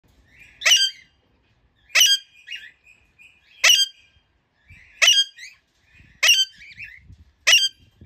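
Alexandrine parakeet calling: six loud, harsh screeches about every second and a half, with softer chattering between them.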